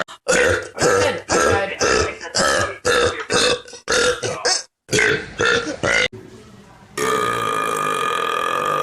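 A person belching over and over in quick succession, about two short burps a second for some six seconds. Near the end comes a longer, drawn-out belch held at a steady pitch.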